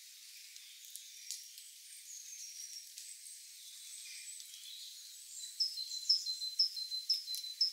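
Birds calling in forest, short high whistled notes and glides, then from about five and a half seconds in a note repeated about twice a second over a steady high tone. A few faint crackles of dry leaves.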